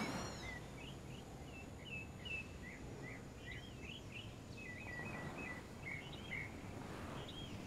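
Faint night ambience: a low background hush with a string of short, high chirps from a small animal, a few each second.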